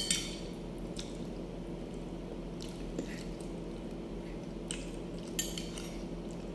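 A person eating pasta: soft wet chewing and mouth sounds, with a few short scrapes and taps of a fork and spoon against the plate. A steady low hum runs underneath.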